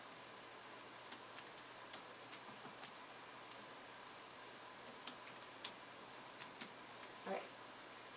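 Light, sharp taps of a plastic stylus on a pen-display screen, about a dozen clicks coming irregularly in small clusters, over quiet room tone.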